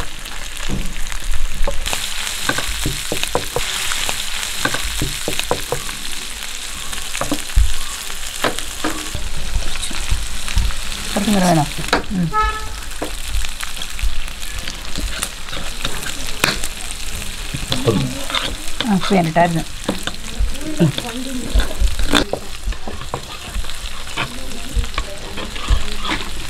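Masala-coated green mussels shallow-frying in coconut oil in a pan, sizzling steadily, with the clicks and scrapes of a spatula stirring and turning them.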